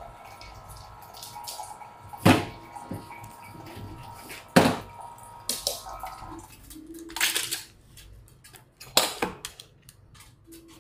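Hard household objects knocked and set down, four sharp clacks spread across the stretch, over faint water sounds. These fit a kettle and cups being handled.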